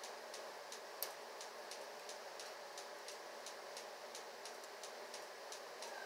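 Faint, even ticking about three times a second, with one sharper click about a second in.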